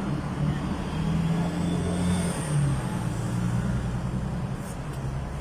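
Motor vehicle engine running nearby: a steady low hum whose pitch drifts a little.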